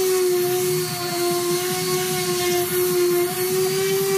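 Electric random orbital sander running steadily on a wooden chopping board, with a motor hum that wavers a little in pitch over the rasp of 120-grit sandpaper on the wood, finish sanding.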